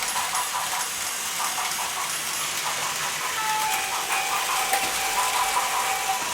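Battery-powered Plarail toy trains running on plastic track: a steady whirring of small motors and gears. Thin electronic tones sound over it, strongest in the second half.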